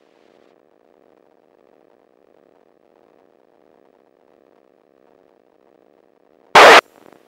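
Light aircraft engine heard faintly over the headset intercom as a steady, muffled hum with one constant tone. Near the end, a brief, very loud radio squelch burst cuts in, followed by a few small clicks.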